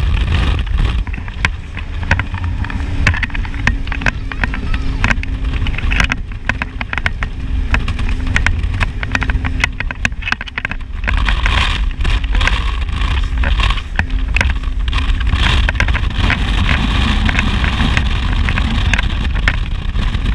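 Cigar-style Powerplay powerboat running flat out at about 70 mph: a deep engine drone mixed with heavy wind buffeting on the microphone and repeated knocks from the hull slamming across the chop. A steady hum runs through the first half and fades out about halfway.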